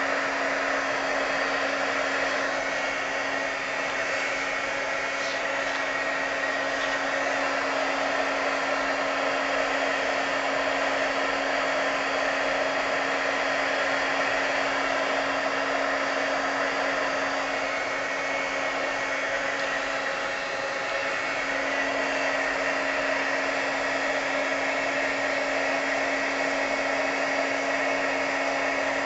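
Handheld electric heat gun running continuously: a steady rush of blown air over a constant motor hum.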